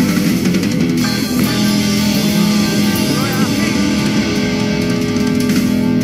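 Studio band playing a guitar-led music bed.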